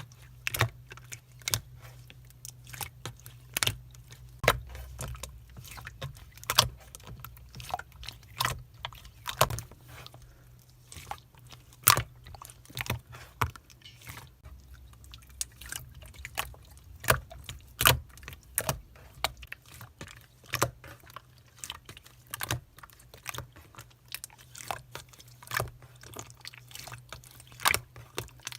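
Slime being played with, giving off a string of sharp crackling pops and clicks at irregular intervals, with a low steady hum underneath.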